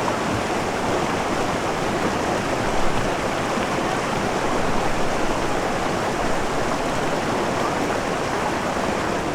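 Steady rush of fast-flowing mountain water.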